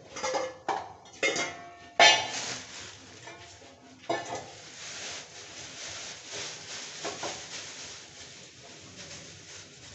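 Metal kitchen utensils clanking and ringing, several quick knocks in the first two seconds with the loudest about two seconds in, and two more later. After about four seconds a steady hiss sets in underneath.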